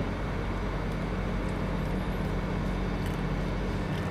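Steady low mechanical hum, with one short click right at the start.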